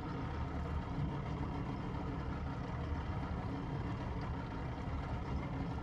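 Steady low rumble of a fishing boat's engine running at idle.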